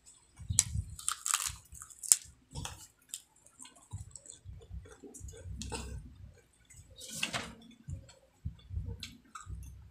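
Crispy fried chicken skin being bitten and chewed close to the microphone: repeated sharp crunches and crackles over dull chewing, the loudest crunch about two seconds in.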